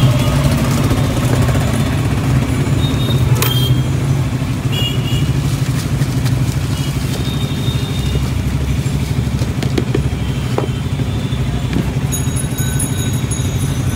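Steady roadside traffic noise with a motor vehicle engine running nearby, a low hum that holds throughout. A few light clicks and short high tones come through over it.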